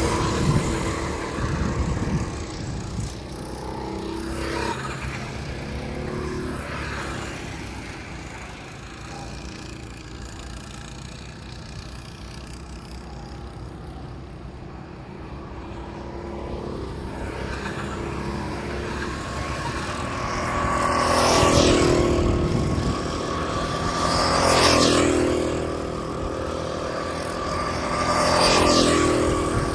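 Go-kart engines buzzing around a track: a kart passes close at the start, the sound drops to a distant drone in the middle, then karts pass close three times near the end. On each close pass the pitch rises and then falls.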